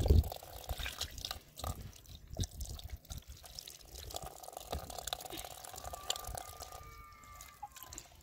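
Water running from a tank's tap, splashing and dripping as drinking glasses are rinsed under it by hand, with small clinks and a knock as a glass is set down in a tray at the start.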